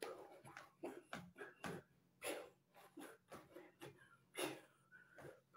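Faint, irregular sounds of a person dancing in a small room: soft footfalls, shuffling and breaths, spaced about half a second to a second apart, over a faint steady hum.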